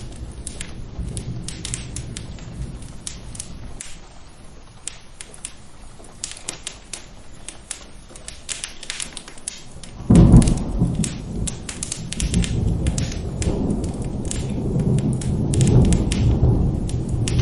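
Rain and thunderstorm ambience with a steady patter of sharp crackles from a fireplace. A low rumble of thunder fades out, then a sudden loud clap of thunder breaks about ten seconds in and rolls on, swelling again near the end.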